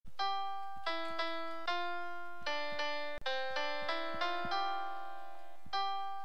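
Keyboard music with an electric-piano sound: a simple melody of struck notes, about two a second, over lower held notes. The music drops out for an instant a little past halfway.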